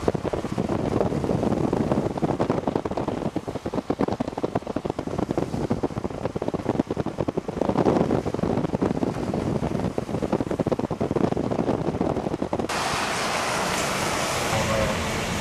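Wind buffeting the microphone, a loud rough rumble. About thirteen seconds in it switches abruptly to a smoother, brighter hiss.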